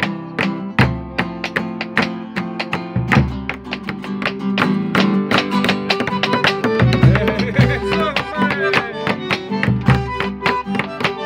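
Nylon-string classical guitar playing an instrumental passage between sung verses, with brisk strummed chords and picked notes several times a second.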